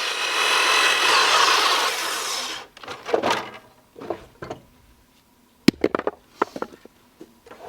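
12-inch sliding compound miter saw cutting a 45-degree end on a pressure-treated lumber brace, its blade and motor whine stopping abruptly about two and a half seconds in. Scattered knocks and clunks follow.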